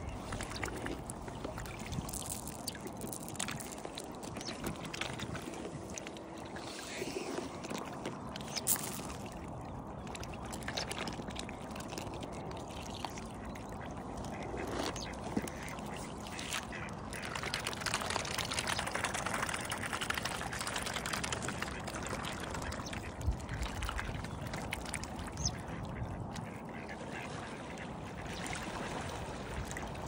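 Mute swans feeding at the water's edge: continuous water splashing and lapping as they dip their bills, with short bird calls now and then.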